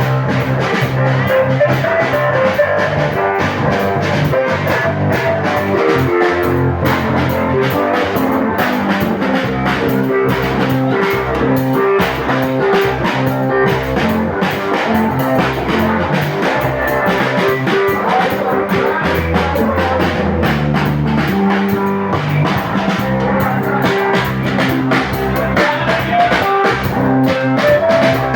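Live band music with drum kit, bass and electric guitar playing a steady beat.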